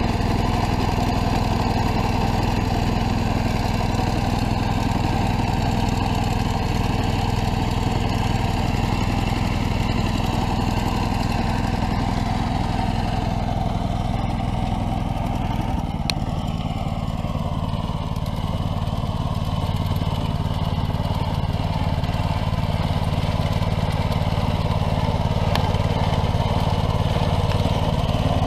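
BCS 740 two-wheel tractor's engine running steadily in first gear, its power takeoff driving the vibrating digging pan of a Power Potato Digger through a potato row. The engine note shifts slightly about halfway through.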